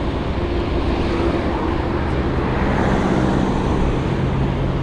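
Road traffic: a motor vehicle's engine running close by, its tone drifting slowly, over steady road and wind noise.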